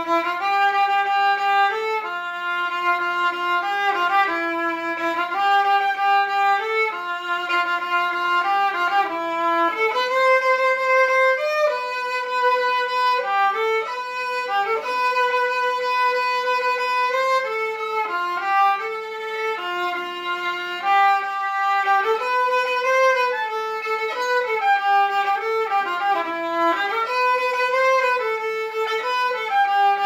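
Solo violin, bowed, playing an unaccompanied melody of held notes and quicker runs, with slides between some notes.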